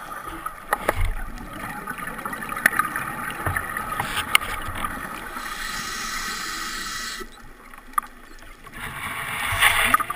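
Underwater sound picked up through a camera housing: a steady hiss with scattered sharp clicks and knocks. A broader, louder hiss comes in about five seconds in and cuts off suddenly a little after seven.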